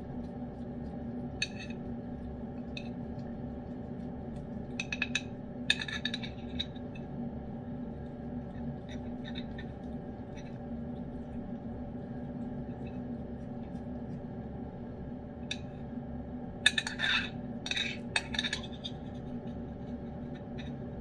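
Metal spoon clinking and scraping against a ceramic bowl in a few short clusters: once about a second and a half in, around five to six seconds in, and most loudly between about 17 and 19 seconds in, over a steady low hum.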